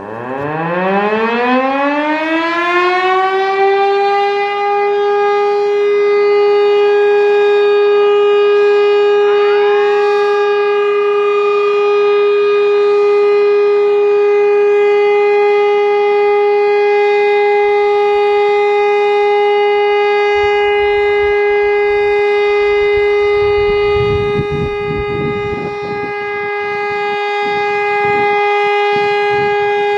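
Elektror L141 electric motor-driven WW2 siren starting up: its pitch rises from a low growl to a steady high tone over about four seconds, then holds that tone for the siren test.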